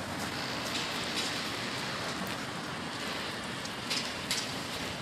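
Steady hiss of outdoor city street ambience heard while walking along the pavement, with a couple of faint clicks about four seconds in.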